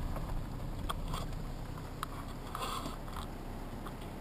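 Car rolling slowly over a gravel road: a low tyre-and-road rumble that eases as it slows, with a few small crunches and clicks.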